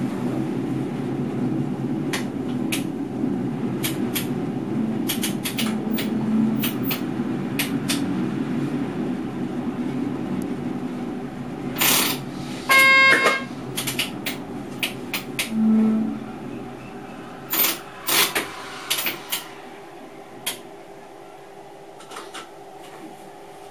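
Cab noise of an NS MAT64 electric multiple unit: a steady low running rumble fades away over the second half as the train slows. Sharp clicks and knocks come from the cab, and a short electronic beep sounds about halfway through.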